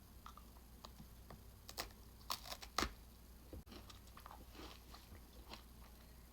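An Oreo Coca-Cola sandwich cookie being bitten and chewed: a few crisp crunches about two to three seconds in, then quieter chewing.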